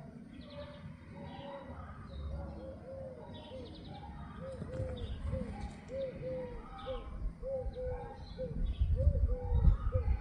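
A run of short calls that rise and fall, repeated about twice a second, over low thumps that get loudest near the end.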